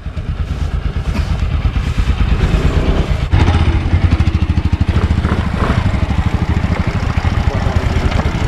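Motorcycle engine running under way, a steady pulsing rumble, with wind buffeting the microphone.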